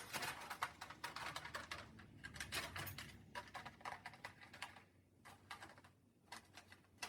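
Cockatiels moving about on and in a cardboard nest box: quick, irregular scratching and tapping on the cardboard, busy for the first five seconds, then sparser.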